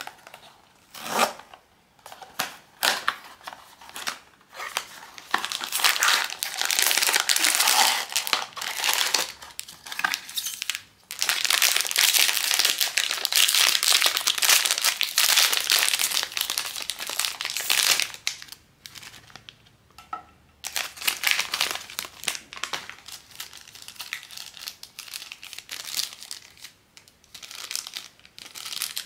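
Crinkly plastic blind-box packaging being crumpled and torn open by hand. It comes in scattered bursts, then a long unbroken stretch of crinkling in the middle, then a pause and more intermittent crackling.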